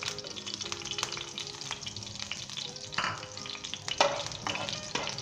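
Green cardamom pods sizzling and crackling in hot vegetable ghee in a frying pan, with a metal spoon stirring them against the pan about three and four seconds in.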